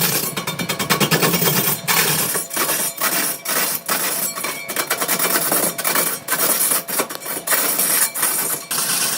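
Power tool cutting wood: a loud, rapid rattling noise that turns into a steady high hiss broken by short gaps after about two seconds.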